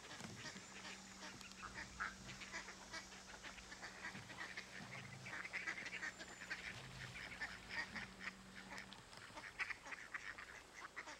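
Several ducks, white domestic ducks and mallards, quacking over and over in short calls.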